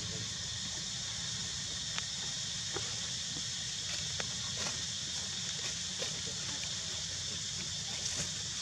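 Steady outdoor background noise, a constant hiss with a low rumble under it, with a few faint soft ticks and clicks scattered through.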